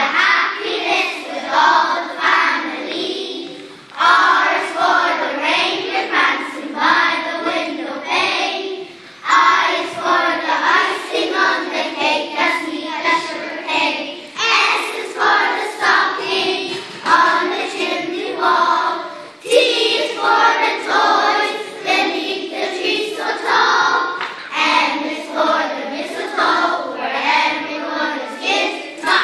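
A group of young children singing together, a song in several phrases with short breaks between them.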